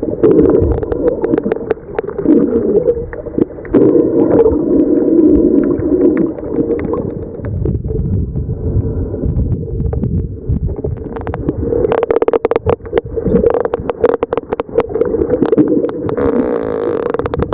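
Sperm whales clicking underwater: trains of sharp clicks over a low rumble of water noise, the clicks coming fastest in the second half.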